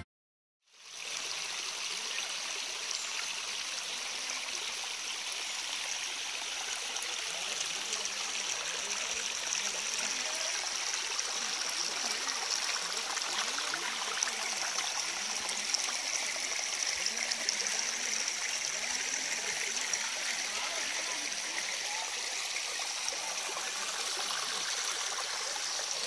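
Shallow forest stream running and trickling over rocks, a steady rush of water that starts about a second in. A steady high thin tone sits above it throughout.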